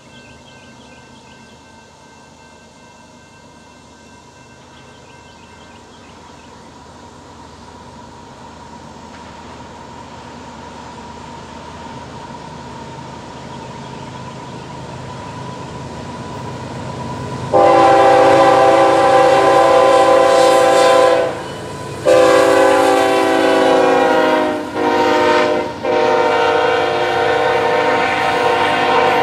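Approaching CSX double-stack intermodal freight train: its rumble grows steadily louder, then the locomotive's multi-tone horn sounds loud blasts, long, long, short, long. That is the standard signal for a grade crossing.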